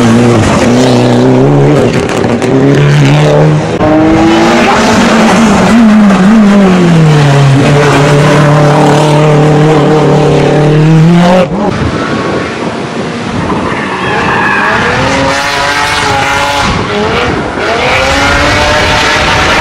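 Rally cars, Mitsubishi Lancer Evolutions among them, with turbocharged four-cylinder engines, accelerating through hairpin bends. The engines rev up and drop back with each gear change, over tyre noise. The sound changes abruptly about eleven seconds in, and another car is then heard revving up and down.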